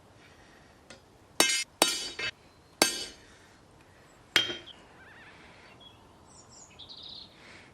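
Hammer blows on steel at an anvil: five sharp, ringing metallic strikes at uneven spacing, the last coming after a pause of about a second and a half.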